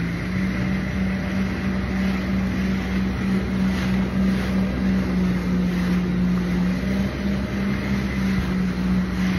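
Jet ski engine running at a steady speed, its drone stepping up a little in pitch just after the start, with wind noise on the microphone.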